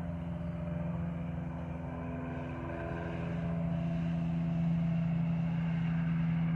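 A steady mechanical drone at a constant low pitch, growing slightly louder about four seconds in.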